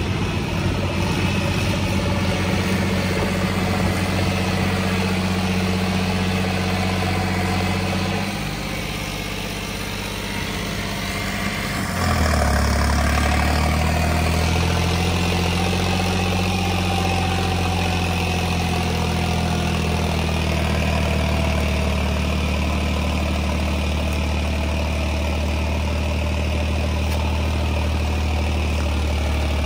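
John Deere 5105 tractor's three-cylinder diesel engine running steadily. Its sound dips and quietens about eight seconds in, then comes back louder and deeper about twelve seconds in and holds there.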